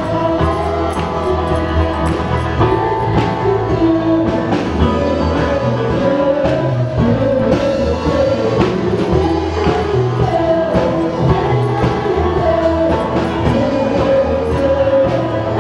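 A man sings an upbeat carol into a microphone over amplified backing music with bass and a steady drum beat, while people clap along.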